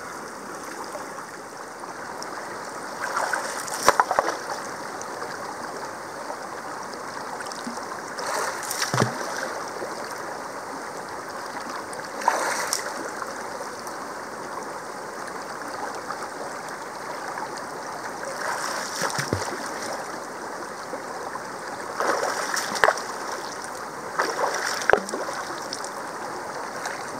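Shallow creek running fast over rocks, a steady rush of water, with brief splashes and knocks every few seconds from someone working in the current.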